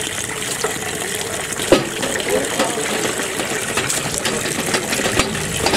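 Tap water pouring steadily into a large aluminium pot of raw chicken drumsticks and splashing over the pieces, with a sharp clack a little under two seconds in.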